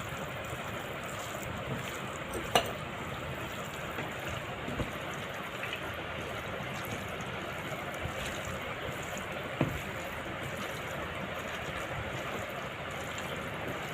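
Soft wet stirring of boneless chicken pieces being mixed by hand in a spiced marinade, over a steady low hiss, with two light knocks of a bowl or utensil about two and a half and nine and a half seconds in.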